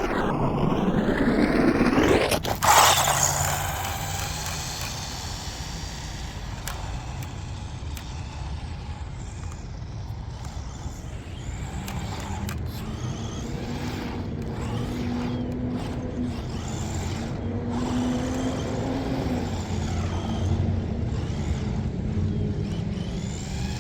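1/14-scale JJRC Rigid C8805 RC truck's brushed electric motor running as the truck drives over wet ground. Its pitch falls over the first two seconds, then there is a sharp knock about three seconds in, followed by steady running with a low hum in the middle stretch.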